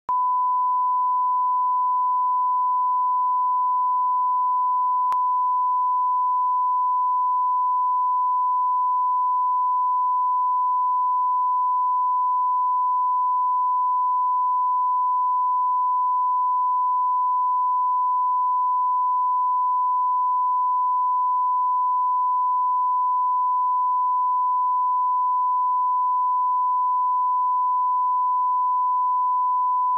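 A steady 1 kHz sine-wave line-up tone, the reference tone that accompanies colour bars at the head of a broadcast master, held at one pitch and level throughout.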